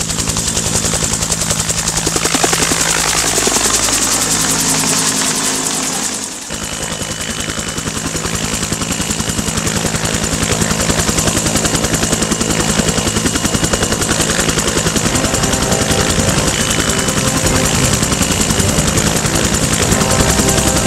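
Bell UH-1 Huey helicopter running loud, its rotor beating fast and evenly over the engine's hum. The sound breaks off sharply about six seconds in and carries on with a steady high whine added.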